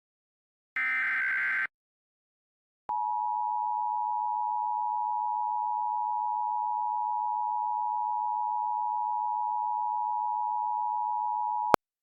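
Emergency Alert System signalling: a short burst of SAME header data tones about a second in. After a brief gap comes the EAS attention signal, a steady two-note tone held for about nine seconds, which cuts off with a click near the end.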